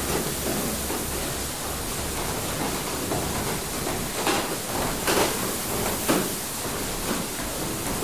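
Inside a working water mill: a steady rush of water with the mill machinery running, and a few irregular knocks from the mechanism about halfway through and again near the end.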